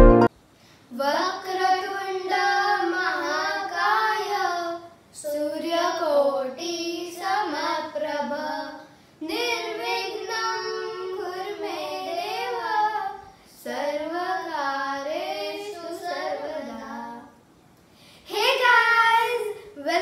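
A child singing unaccompanied, a solo voice in several melodic phrases of a few seconds each with short breaks between them.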